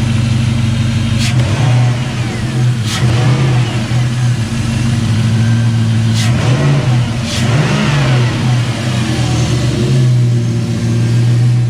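Jeep Grand Cherokee's 4.7-litre V8 with a full aftermarket exhaust, idling and revved briefly about four times, the pitch rising and falling with each blip.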